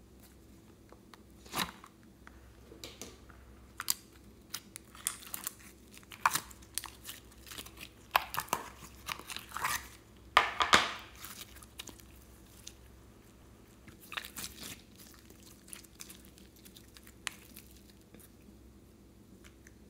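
Slime being squished, pressed and pulled apart by hand, making a run of irregular sticky pops and crackles. They come thickest and loudest about halfway through, then thin out.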